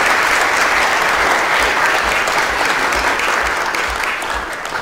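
Audience applauding, steady clapping from many hands that begins to thin out near the end.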